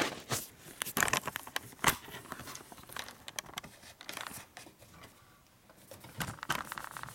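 Cloth shop rag rustling and rubbing as oily hands and the engine case are wiped, with scattered light clicks and knocks of handling on the bench; it quiets down for a moment about five seconds in.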